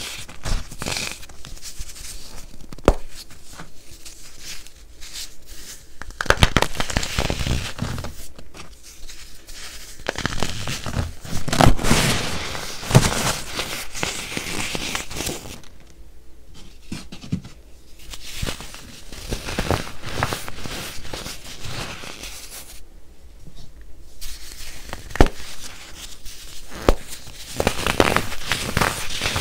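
Fingers crushing and crumbling chunks of baked baking soda, a dense run of crisp crunches and crackles broken by a few short pauses.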